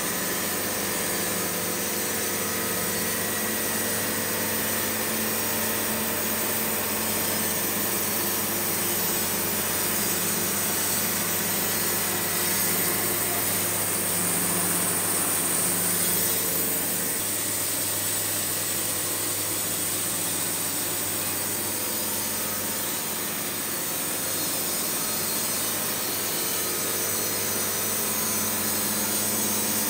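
Wood-Mizer LT70 Wide bandsaw mill running on its diesel engine, the band blade cutting steadily along a cherry cant.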